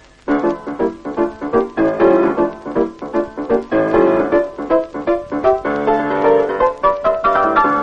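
Solo piano music played on a grand piano: a brisk stream of short notes that starts after a brief pause.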